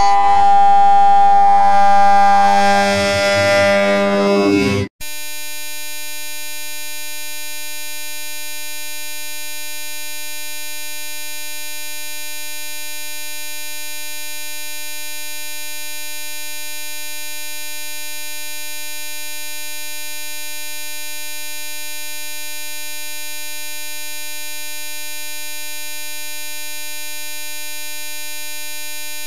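Music with a held reedy note for about five seconds, cut off abruptly and replaced by a steady, unchanging electronic buzz tone that holds for the rest of the time.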